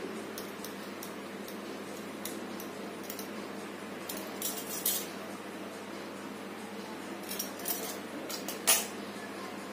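Light metallic clinks and rattles of a metal fluted gujiya cutter wheel being handled over a wooden board, a few scattered ones in the second half and the sharpest near the end. A steady low hum runs underneath.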